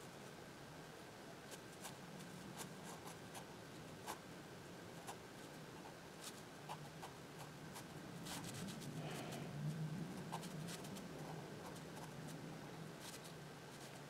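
Fineliner pen nib scratching and ticking on sketchbook paper in short drawing strokes, with a louder, longer scratching stretch a little past halfway. A faint steady hum runs underneath.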